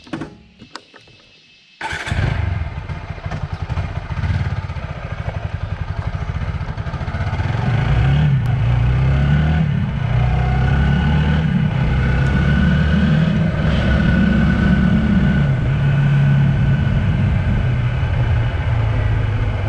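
Motorcycle engine, starting suddenly about two seconds in and running, with revs rising and falling. It grows louder from about eight seconds on.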